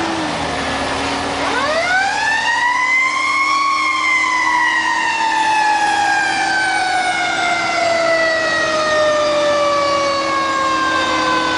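Fire truck's mechanical siren winding up to a high wail about a second and a half in, then slowly coasting down in pitch, over a steady hum.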